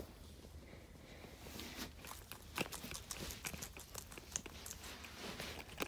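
Guinea pig eating lettuce from a bowl: faint, irregular crunching and clicking as it bites and chews.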